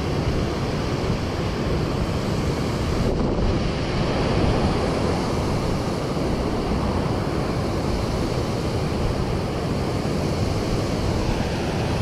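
Steady rushing of water pouring through a freshwater canal spillway that is running strong.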